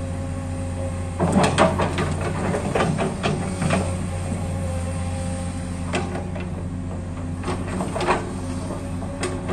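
Komatsu PC200 excavator's diesel engine running steadily under load while the machine digs and swings, with irregular clanks and knocks from the bucket and working gear as it scoops wet mud.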